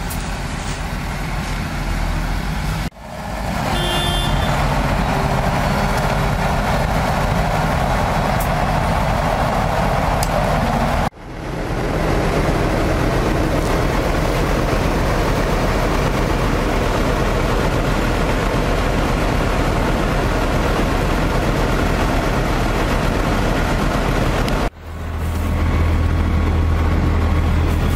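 Large farm tractors' diesel engines running hard under load, a dense steady rumble. The sound drops out briefly three times where clips are cut together, with a deeper rumble in the last few seconds.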